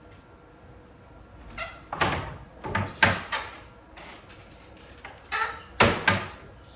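A series of sharp knocks and bangs in two quick groups, about five strokes and then three, each dying away quickly.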